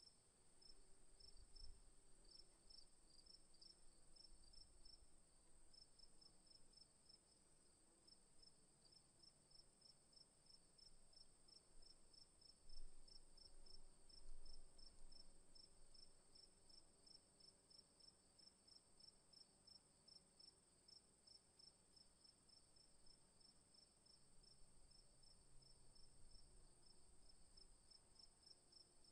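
Faint insects chirping: a steady high trill with a pulsed chirp repeating a few times a second. There are a couple of soft low bumps about halfway through.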